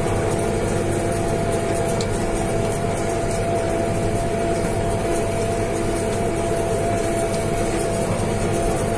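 Tractor engine and towed hay baler running steadily while baling, heard from inside the tractor cab, with a steady whine over the engine's running.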